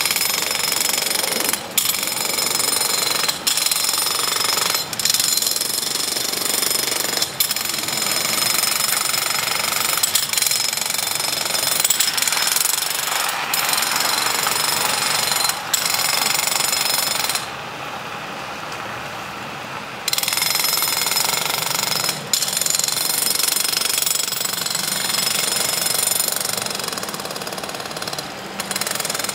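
Handheld power impact tool used on the railroad track, hammering rapidly and continuously, with brief breaks every few seconds and a quieter spell about two-thirds of the way through.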